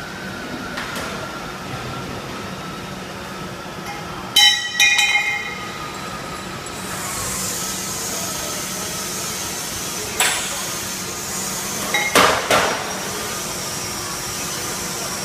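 Stainless-steel vacuum homogenizer mixer running its lid lift, lowering the lid and scraper agitator toward the tank, under a steady machine hum with a faint high whine from about seven seconds in. Loud ringing metallic clangs come about four seconds in, with sharper metal clanks near ten and again around twelve seconds.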